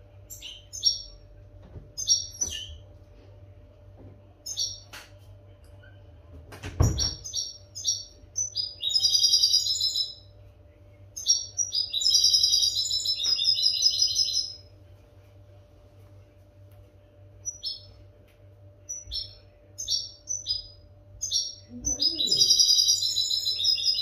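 European goldfinch singing: short high twittering call notes scattered throughout, with longer rapid twittering song phrases about nine seconds in, from about twelve to fourteen seconds, and near the end. A single dull thump about seven seconds in, over a faint steady hum.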